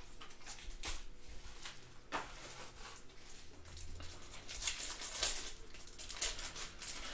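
Trading cards and their pack wrappers being handled: irregular rustling and crinkling with light flicks of card on card, busier in the second half.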